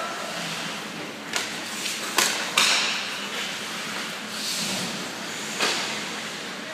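Ice hockey play: four sharp knocks of stick, puck and boards, two of them close together a little past two seconds in, over a steady hiss of skates on the ice.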